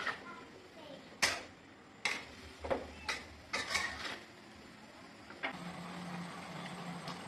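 A metal ladle knocking and scraping against a wok as long beans and pork are stir-fried, with several sharp clanks over the first four seconds, the loudest about a second in. From about five and a half seconds in, a steady low hum takes over.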